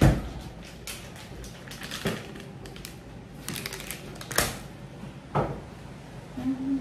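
Kitchen clatter: scattered knocks and light clicks of items being handled and set down on counters, with a loud knock at the very start and a few sharper knocks about two, four and a half, and five and a half seconds in.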